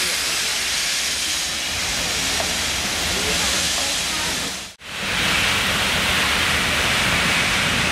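Steam locomotive blowing off steam: a loud, steady hiss that breaks off for an instant about halfway through and comes back brighter.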